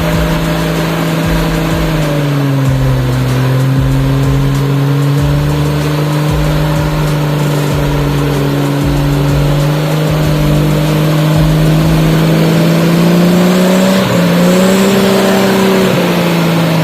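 Off-road 4x4's engine running at steady revs under load. Its pitch dips slightly about two seconds in, then climbs gradually toward the end.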